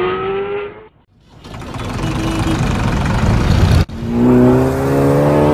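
Cartoon sound effects: a short rising tone, then a rushing noise that builds and cuts off suddenly. A car engine then runs with its pitch slowly rising as it accelerates.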